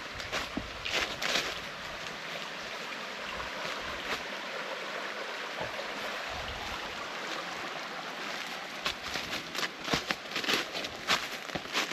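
Small mountain creek running over rocks: a steady rushing hiss. Footsteps on dry leaf litter come about a second in and again several times near the end.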